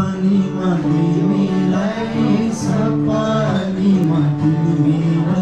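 A man singing a song with guitar accompaniment.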